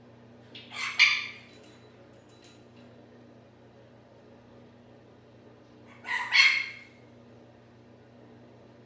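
Pet parrot in its cage giving two loud calls about five seconds apart, with a few short chirps just after the first: attention-seeking calls from a bird that wants its owners up and interacting with it.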